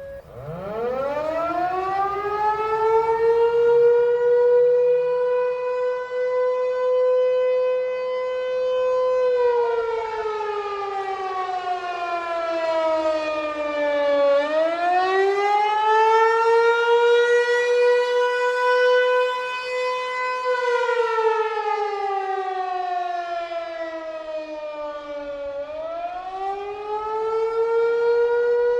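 American Signal T-128 outdoor warning siren sounding the attack signal: it winds up from nothing to a high wail, holds, then slowly falls in pitch and rises again, twice. The rising and falling wail is the attack (enemy attack) signal, with echo around it.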